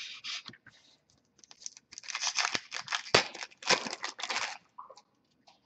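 Foil trading-card pack wrapper crinkling and tearing as it is opened by hand, with the cards inside rustling. The sound comes as a run of rustling bursts, loudest in the middle.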